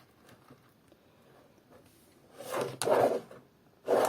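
Handling noise: two short bursts of rubbing and scraping from craft materials being moved, starting about two and a half seconds in, with a sharp click in the first burst.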